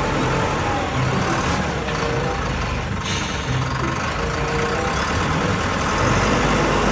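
SZM 932 wheel loader's diesel engine running steadily while it tips a bucket of gravel into a small truck's bed, with the gravel pouring and rattling down.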